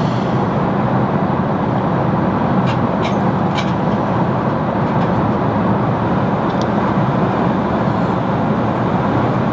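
Steady rushing cabin noise of an Airbus A380 in flight, with a few faint light clicks near the start and again later.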